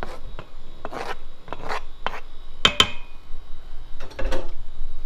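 Wooden spoon scraping chopped lobster off a plastic cutting board into a stainless steel pot: a series of short scraping strokes, with two sharp knocks in quick succession about halfway through.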